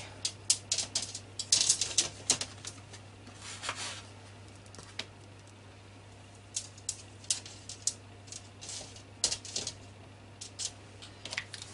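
Plastic dough scraper scraping and clicking against a floured work surface and baking tray while dough rolls are lifted across. A quick run of short scrapes and clicks comes in the first few seconds, then scattered taps.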